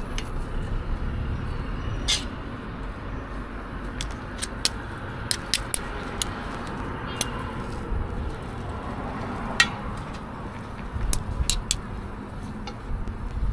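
Outdoor street ambience: a steady low rumble with scattered sharp clicks and taps throughout.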